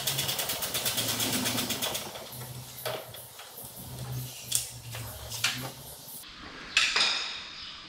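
Socket ratchet clicking rapidly for about two seconds as a 10 mm headlight mounting bolt is turned, followed by a few separate tool clinks and knocks.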